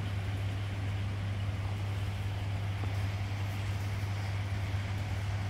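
Steady low machinery hum with a broad rush of noise over it, unchanging throughout.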